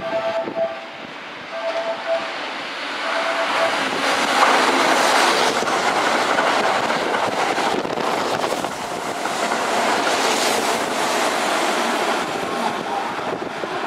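Keihan 3000 series electric train passing through a station at speed: a loud rush of wheels and running gear that builds about three seconds in and carries on for about nine seconds before easing. A repeating beeping tone sounds in the first few seconds.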